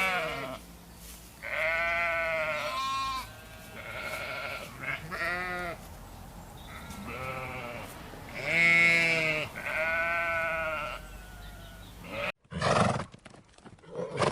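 Sheep bleating: a series of about eight separate wavering bleats, some overlapping as if from more than one animal. Near the end they cut off abruptly, followed by a brief loud noisy burst and a run of sharp clicks.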